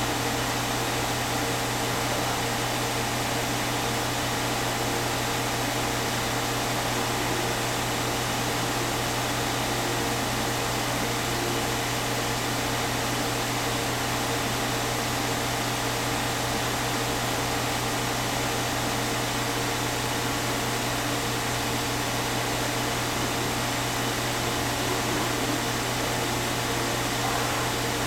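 Aquarium pump and filtration equipment running: a steady low hum with an even hiss, unchanging throughout.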